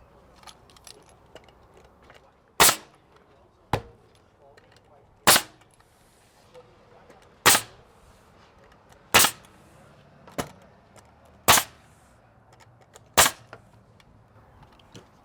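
Nail gun firing nails into a siding board, eight sharp shots about one to two seconds apart as it works along the board.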